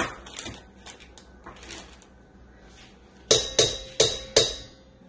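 A utensil knocked four times in quick succession against the stainless steel bowl of a stand mixer, each knock ringing out briefly, about three a second, after a few faint clinks.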